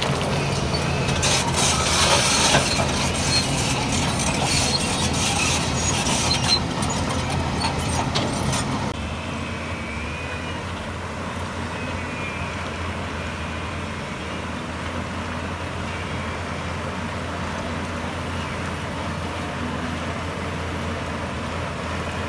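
Heavy diesel construction machinery running, with loud clattering and scraping noise over the engine for the first nine seconds or so. Then an abrupt change to a steadier, quieter engine drone.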